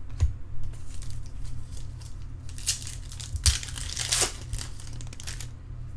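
Crinkling and tearing of a trading-card pack wrapper being opened, in a few noisy bursts, loudest in the second half.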